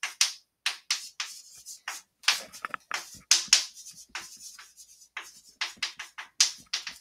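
Chalk writing on a blackboard: a quick, irregular run of short scratching strokes and taps as words are written out.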